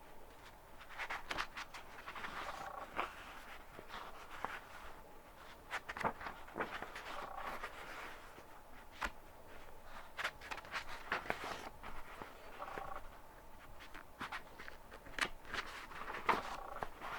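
Pages of a book being turned again and again, each turn a short papery rustle with a sharp flick, coming at irregular intervals.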